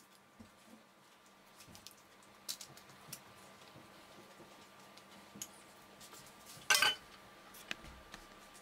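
Quiet small taps and dabs of a pastry brush glazing dough with egg yolk, with one brief ringing clink from the small glass bowl of yolk about seven seconds in, the loudest sound.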